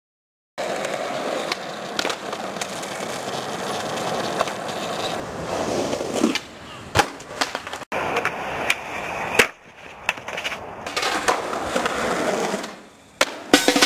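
Skateboard wheels rolling on concrete, with several sharp clacks of the board hitting the ground in the middle of the stretch. The sound begins about half a second in.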